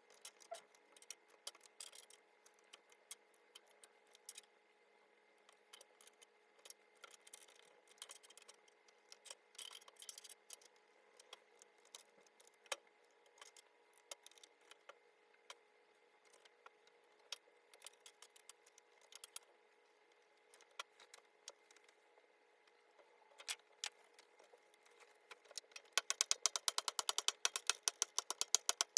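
Scattered light plastic clicks and clatters from an HHKB Professional 2 keyboard being cleaned. Near the end comes a fast run of keystrokes on its Topre electrostatic capacitive switches.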